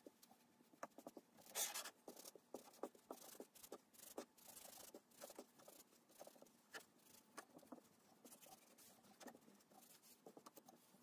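Faint rubbing and light taps of a hand spreading mineral oil over a wooden cutting board, in short irregular strokes, with a slightly louder swish about a second and a half in.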